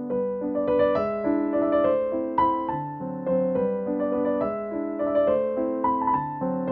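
Piano waltz playing as background music, a gentle melody moving note by note over a lower accompaniment.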